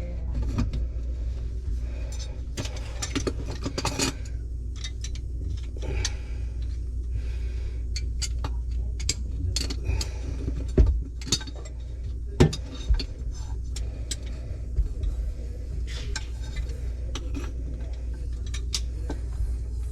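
Scattered clinks and knocks of small metal drain parts and tools being handled while fitting a push-button pop-up drain to a vessel sink, over a steady low hum. Two sharper knocks come about eleven and twelve and a half seconds in.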